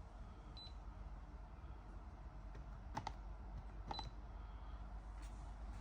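Buttons being pressed on a Midea HMI heat pump controller: a few separate clicks, two of them with a short high beep.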